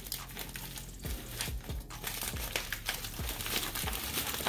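Paper rustling and crinkling, with scattered small crackles and taps, as a sheet of paper is pulled out of a cardboard shipping box.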